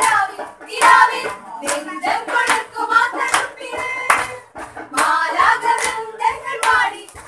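A group of people singing a Christmas carol, with hand clapping in time, a sharp clap every half second to second.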